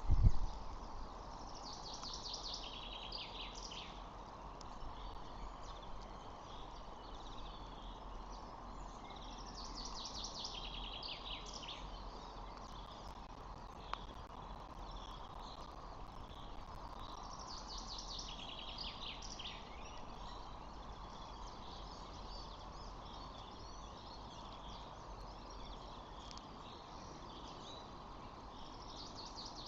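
A songbird singing the same short, high phrase about every eight seconds, each lasting about two seconds, over steady outdoor background noise with a faint steady hum.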